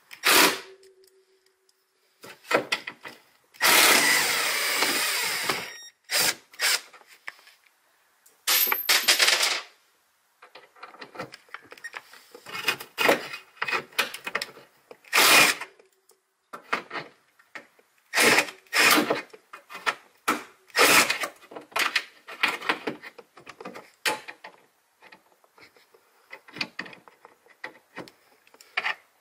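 Metal hand tools and parts clinking and knocking in irregular bursts during bolt-tightening work. There is a longer noisy burst of about two seconds roughly four seconds in.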